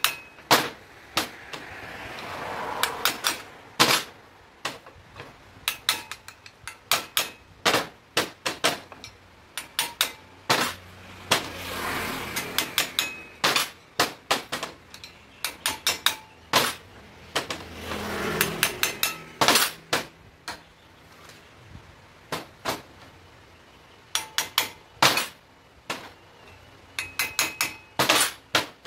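Hammer tapping a punch against a motorcycle steering-head bearing race to drive it off the steering stem: runs of sharp metal-on-metal strikes, with a few swells of rougher noise in between. The race is being knocked out slowly because it is worn, its balls having pitted it.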